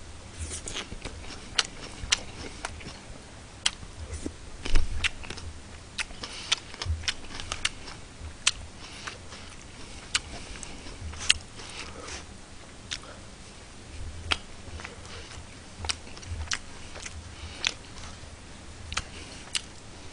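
A man eating close to a microphone: chewing a mouthful of shredded cabbage salad, with irregular short crunches and clicks about one or two a second, and chopsticks picking at food in a plastic lunch tray.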